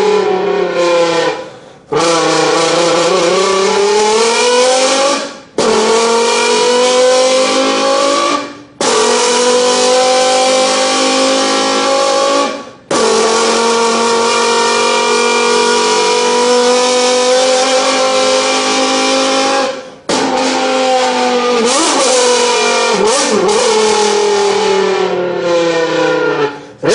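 Mouth-made imitation of a Lamborghini V10, voiced through an empty beer can, pulling up through the gears. The pitch climbs steadily, with a sudden brief drop like a gear change about five times, then short revving blips near the end.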